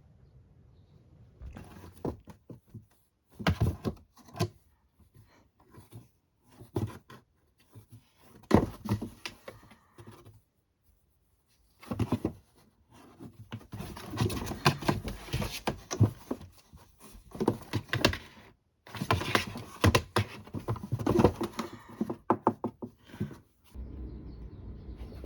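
Irregular taps, thumps and rustling at close range, in several busy stretches broken by brief silent gaps.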